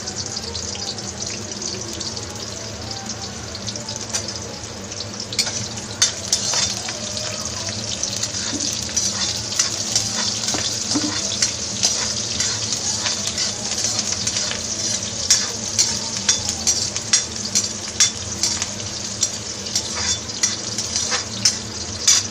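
Chopped onion sizzling in hot oil in a pan, a steady frying hiss. From about five seconds in, a spatula clicks and scrapes against the pan again and again as the onion is stirred.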